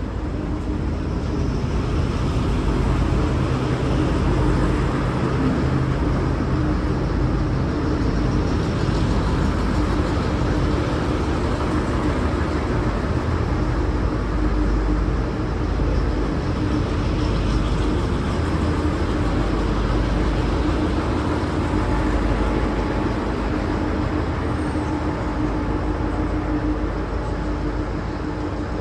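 V/Line Sprinter diesel railcar running steadily: a continuous low rumble with a steady hum through it.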